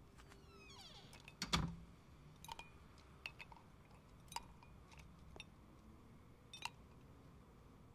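Glassware and a bottle clinking and knocking on a tabletop as drinks are being made: a handful of light clinks spread over several seconds, with one louder knock about a second and a half in. A brief falling squeak comes just before the knock.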